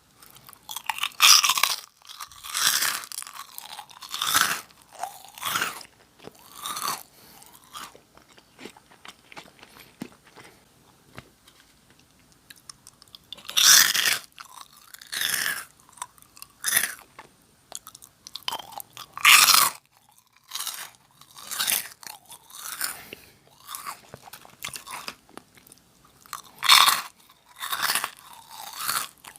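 Close-miked crunching and chewing of Nongshim Jagalchi, a crisp fried snack. Loud crunchy bites come about a second in, near the middle and twice more in the second half, with smaller chewing crunches between them and a softer lull in the first half.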